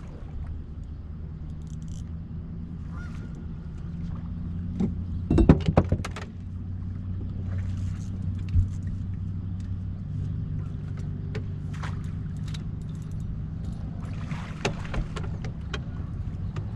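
A boat motor running steadily at idle, with a quick clatter of knocks on the boat about five seconds in.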